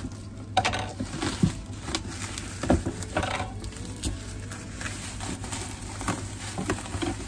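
Bubble wrap crinkling and crackling as it is handled and pulled off a box, with irregular sharp crackles, over a steady low hum.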